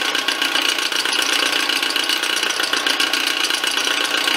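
Milling machine running steadily, its spindle turning an end mill at a round steel workpiece.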